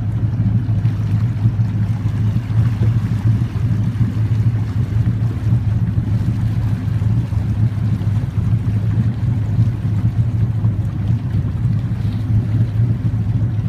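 Boat motor running steadily under way: an even, low drone with water and wind noise over it.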